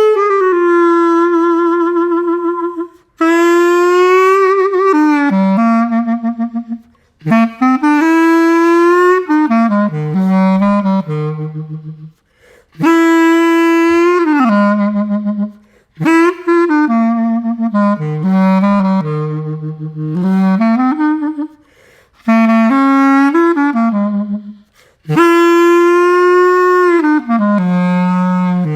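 Cheap plastic clarinet with its stock mouthpiece and reed, played in a string of short melodic phrases, with wavering held notes and brief pauses between phrases. It sounds pretty horrible, which the player blames on the stock mouthpiece and reed.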